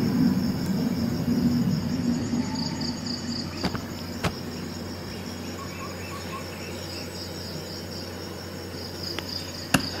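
Steady, high, pulsing chirping of an insect throughout, with a low rumble in the first couple of seconds and a few sharp clicks, the loudest just before the end.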